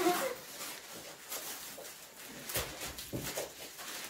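Two children scuffling: faint rustling and shuffling, with two dull thumps about half a second apart a little past halfway.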